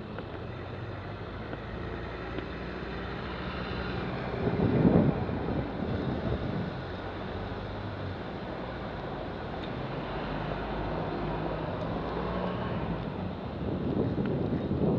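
City traffic heard from a moving bicycle on a wet road: a steady rush of passing cars and buses with engine hum, and wind on the microphone. A louder whoosh comes about five seconds in, and the traffic swells again near the end.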